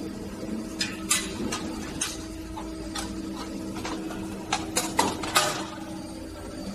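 Metal parts of an aluminum heat-exchanger core builder machine clicking and clanking as they are handled, with a quick run of knocks about five seconds in, over a steady machine hum.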